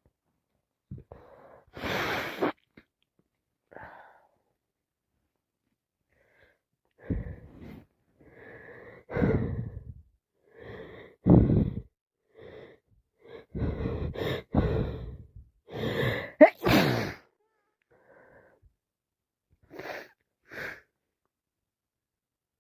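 A woman with a congested head cold sniffing and taking wheezy, catching breaths, with several loud sneezes in among them. The sharpest comes about 16 seconds in.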